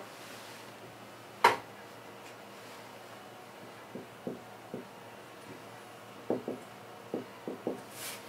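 Dry-erase marker writing on a whiteboard: a run of short squeaks and scratches from about four seconds in, as letters are written. A single sharp click about a second and a half in.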